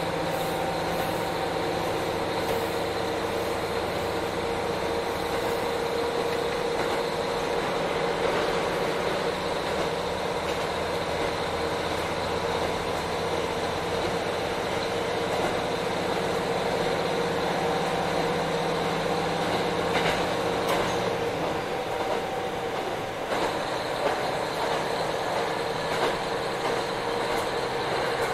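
KiHa 40 diesel railcar heard from inside the car: its diesel engine running steadily under power over the noise of wheels on rail. About two-thirds of the way through the engine note drops away, leaving wheel and rail noise with sharper clicks as the car runs on.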